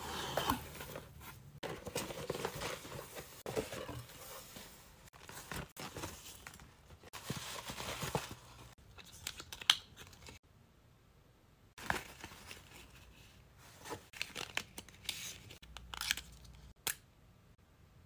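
Paper packaging and tissue paper rustling and crinkling as luxury items are unwrapped by hand, with small taps and clicks. The rustling is dense for about the first ten seconds, then gives way to a quieter stretch with a few sharp clicks.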